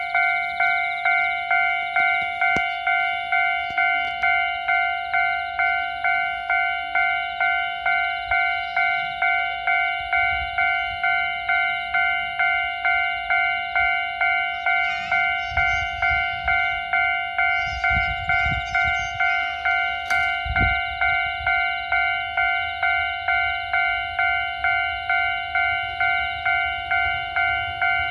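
Japanese railway level-crossing warning bell ringing steadily at about two strikes a second, warning of an approaching train. A low rumble swells in the second half, with a single knock about twenty seconds in.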